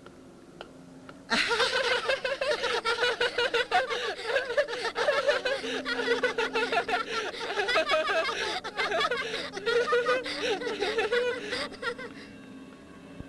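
Cartoon character laughing hard in a high voice: a long run of laughter that starts about a second in and stops near the end, over faint background music.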